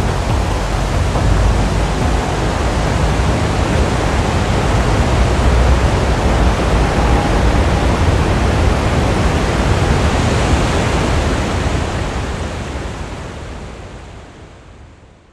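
Steady roar of the Lower Falls, a large waterfall on the Genesee River, with heavy rushing water and a deep rumble. It fades out over the last few seconds.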